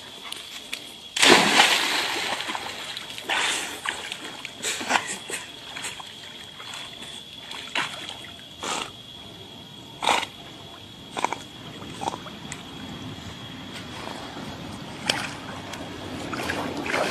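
A dog leaps into a pond with one big splash about a second in, then irregular shorter splashes and sloshing as it swims out and drags a man back toward the bank.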